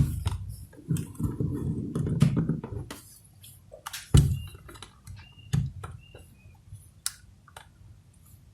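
Small plastic camera body being handled and eased apart: a run of sharp clicks and taps, with louder knocks about four and five and a half seconds in.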